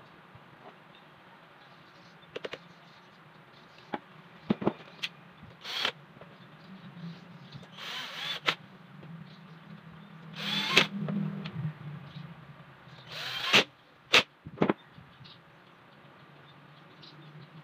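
Cordless drill driving screws into an electric fan's motor housing in a few short bursts, amid clicks and knocks of metal parts being handled.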